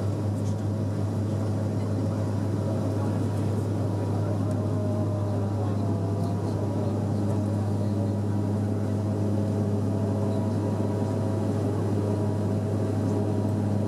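Cabin noise of a Bombardier Dash 8-400's turboprop engines and propellers at climb power just after take-off: a steady, deep propeller drone.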